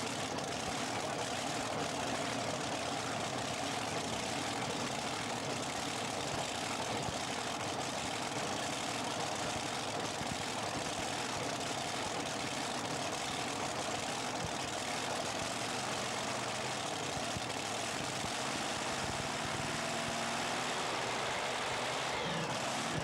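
Engine idling steadily, a constant drone with no revving.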